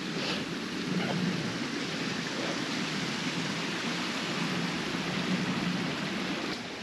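Steady rushing outdoor noise, even from low to high pitch, with no distinct events.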